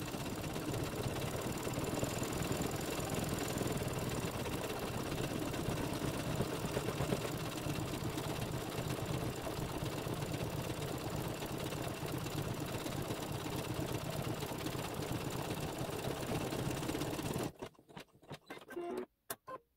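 Embroidery machine running steadily as it sews a satin stitch. It stops near the end, and a few brief, choppy sounds follow.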